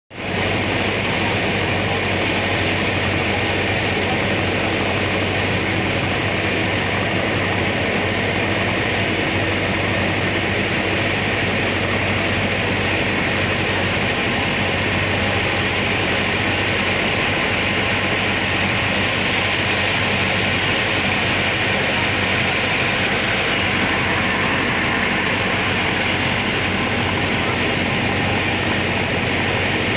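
Steady engine drone of a passenger ferry under way: an unchanging low hum beneath an even rushing noise.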